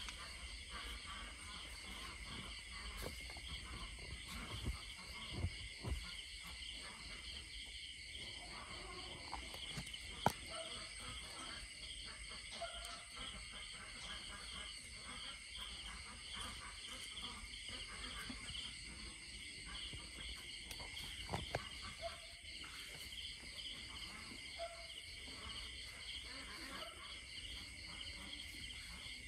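Night chorus of crickets and other insects: a steady, high, pulsing chirring at several pitches at once. Scattered small rustles and knocks come from handling in the dry grass, and a sharp click about ten seconds in is the loudest sound.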